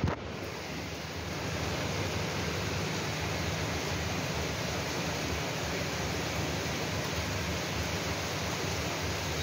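Steady rain falling, an even hiss with no let-up, after a brief click right at the start.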